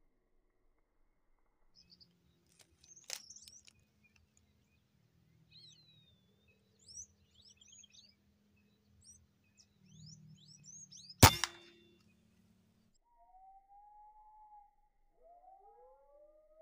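Small birds chirping with short rising and falling whistles, then lower arched calls near the end. A sharp click comes about three seconds in and a single loud, sharp knock about eleven seconds in, over a faint low hum.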